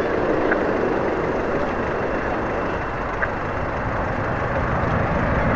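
Panavia Tornado GR4 jets on an afterburner takeoff, their twin RB199 turbofans making a steady, deep jet noise that eases slightly in the middle and grows louder again near the end.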